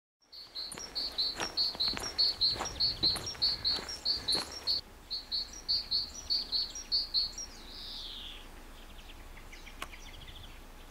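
A small songbird singing: a quick series of short, high repeated notes, about three a second, for several seconds, ending in one falling slurred note and a few fainter notes.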